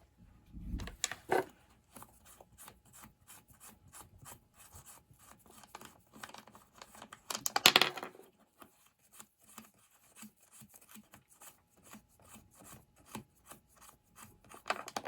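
Clicking and rattling of metal as a chainsaw's bar and chain are worked off by hand, with a louder scraping rasp about eight seconds in and a clatter at the very end.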